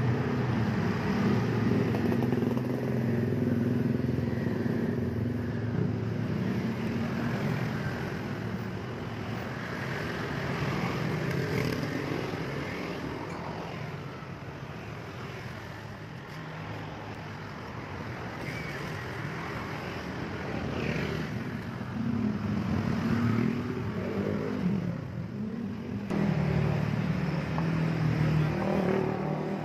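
Engine noise of passing road vehicles, swelling and fading several times.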